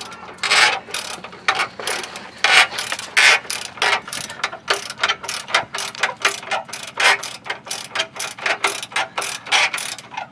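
Hand ratchet wrench being worked in quick back-and-forth strokes, a run of rattling clicks about three strokes a second, turning a nut on the truck's front suspension.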